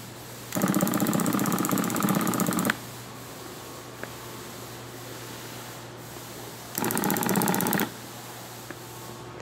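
An automatic soldering machine's drive motors run in two bursts, the first about two seconds long and the second about a second long, with a fast buzzing stutter. A steady low hum runs under them.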